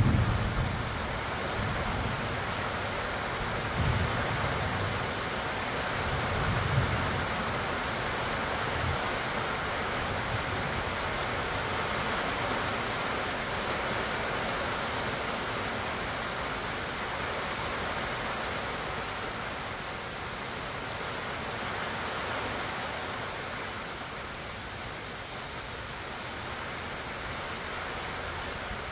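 Steady summer rain falling on pecan trees and grass, an even hiss throughout. Low thunder rumbles roll in the first several seconds, the last of them about seven seconds in.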